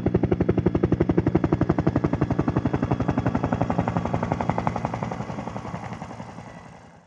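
Helicopter rotor sound effect: a rapid, even chopping over a low hum that slowly fades out.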